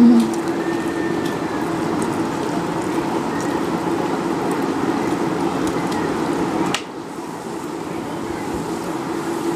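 Steady mechanical hum over a background rush, with a brief louder low note right at the start; about seven seconds in a click is followed by a slight drop in level.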